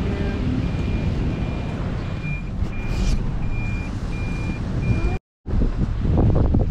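A steady series of high electronic beeps, about one and a half a second, over a low windy rumble. The beeps stop abruptly at a short dropout about five seconds in, after which wind buffets the microphone.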